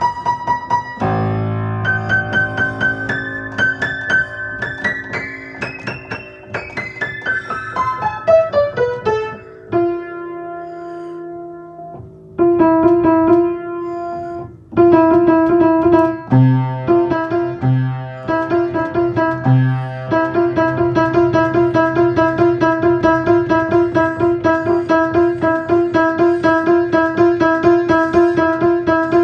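Piano being played: a run of notes climbs and then falls over the first several seconds, and after a short lull one note or chord is struck over and over at a steady pace, about three times a second.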